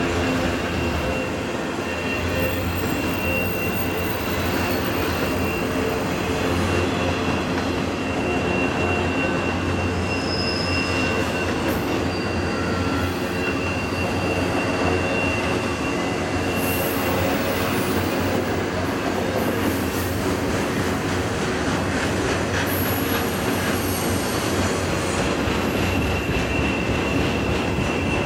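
Intermodal freight cars loaded with highway trailers rolling by steadily, a continuous rumble of steel wheels on rail. A thin, high wheel squeal from the curving track comes and goes over it.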